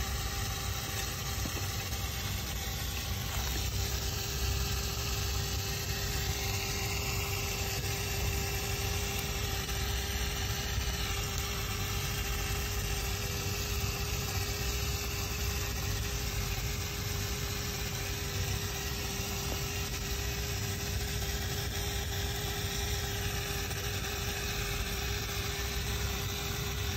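Steady machine hum of a running motor: two constant tones over a low rumble, unchanging throughout.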